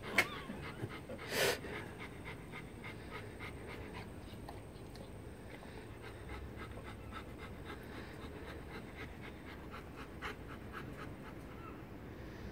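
Bernese Mountain Dog panting steadily and softly in quick, even breaths, mouth open and tongue out, to cool down after a long walk. There is one short, louder puff of breath about a second and a half in.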